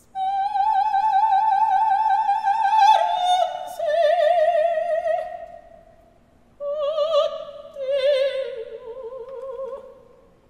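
Operatic soprano singing a recitative almost unaccompanied. She holds a long high note with wide vibrato that steps down about three seconds in, then pauses and sings a second phrase that falls lower toward the end.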